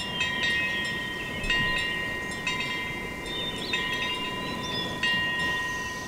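A small metal wind bell (pungyeong) hanging from wooden hanok eaves rings as the wind swings its clapper. It is struck again several times, each stroke renewing a steady ringing tone.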